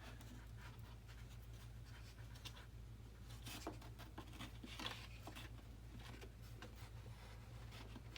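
Faint scratching and light clicks of small parts being handled: wire leads and a burner being worked into a foam model, over a low steady hum.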